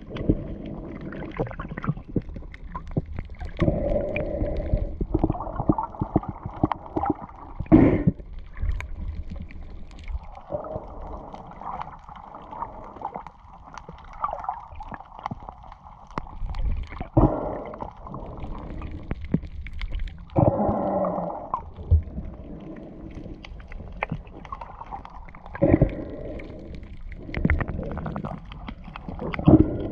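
Muffled gurgling and sloshing of water heard through a submerged camera, coming in irregular surges a second or a few seconds long, with scattered small clicks.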